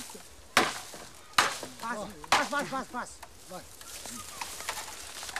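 Machete chopping into a felled bamboo pole: three sharp strikes less than a second apart, then lighter taps, with a voice in between.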